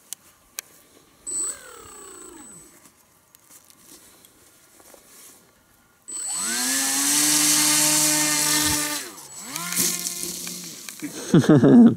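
Small electric motor and propeller of a cardboard RC plane: a short blip with falling pitch about a second in, then about six seconds in it spins up suddenly to a steady whine at reduced throttle for a hand launch, and drops away after about three seconds. A louder, irregular burst follows near the end.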